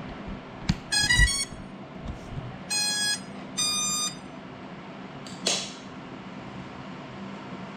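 Cinelog 35 FPV quadcopter's brushless motors sounding their start-up tones: a quick run of short beeps about a second in, then two longer beeps. These are the speed controllers' tones when the battery is connected, before takeoff. A short swish comes near the end, over a steady low hum.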